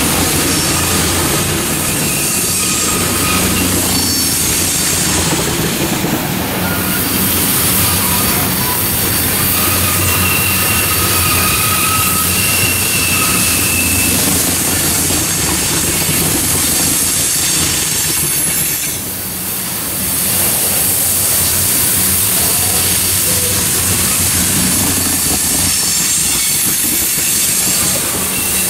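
A long train of railroad tank cars rolling past close by, with a steady rumble and rush of steel wheels on rail. A thin, high wheel squeal comes and goes, mostly in the first half.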